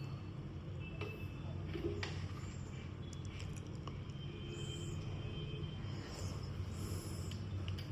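A steady low hum, with a few faint clicks and several brief high-pitched squeaks or chirps.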